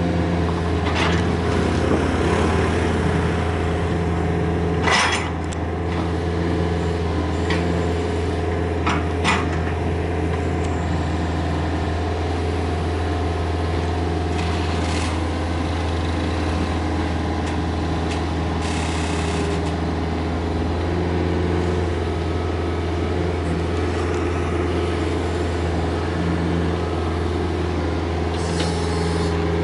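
Komatsu PC45MR mini excavator's diesel engine running steadily under load as it digs and loads soil, with a few sharp clanks of the bucket and a short hiss about two-thirds of the way in.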